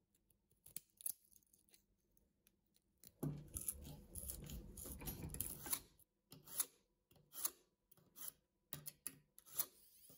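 Steel scissors snipping and crunching through a thin, mesh-reinforced abrasive cut-off disc: scattered sharp snips at first, then about three seconds of dense crunching cutting. From the middle on there are five short, separate bursts, less than a second apart.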